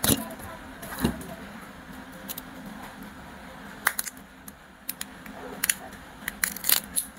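Plastic candy packaging crinkling and clicking as fingers peel the film off a round plastic-cased candy: scattered sharp clicks, with a quick cluster of them near the end.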